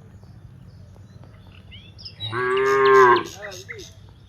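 A cow mooing once, about two seconds in, for about a second, its pitch dropping as it trails off. Birds chirp faintly around it.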